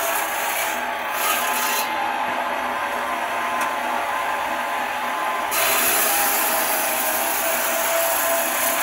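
Homemade belt-driven stone-cutting saw running, its circular blade grinding through a stone slab with a steady gritty hiss. The hiss thins out about two seconds in and comes back strongly a little past the middle.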